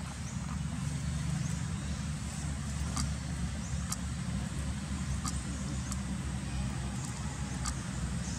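Steady low motor rumble, with a few faint sharp clicks over it.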